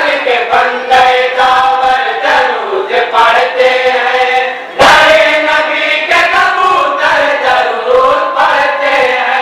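A group of men chanting together in unison, amplified through a microphone, in long drawn-out melodic phrases. There is a short break about halfway through, then the chant comes back loudly.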